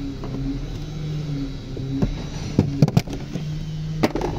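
Sharp plastic clicks and knocks as a tool pries at a Toyota RAV4's lower dashboard trim panel: a quick cluster about two and a half seconds in and one more just after four seconds. A steady low hum runs underneath.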